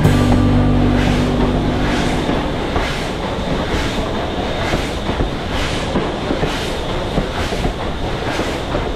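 A train running on the rails: a steady rumble with a regular clatter a little under twice a second.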